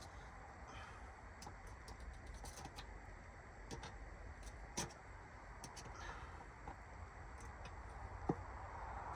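Faint scattered clicks and ticks from handling a metal pipe clamp and water-line fittings, with a couple of sharper knocks, about five seconds in and near the end, over a low steady rumble.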